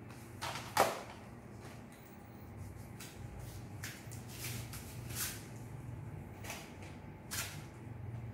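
Rummaging through cassette tapes: scattered rustles, clacks and knocks from plastic cassette cases, a plastic bag and cardboard boxes being handled. The loudest knock comes about a second in.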